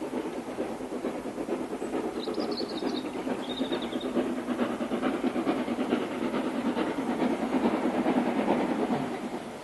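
Steam locomotive approaching under power, its exhaust a rapid, continuous chuffing that grows steadily louder and then drops away just before the end.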